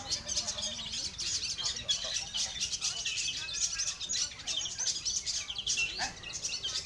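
Dense chorus of many long-tailed shrikes (cendet) singing and chattering at once, rapid overlapping chirps and trills as at a bird-song contest.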